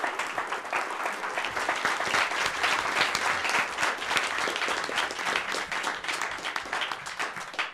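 Audience applauding: many people clapping together in a dense, even patter that dies away at the end.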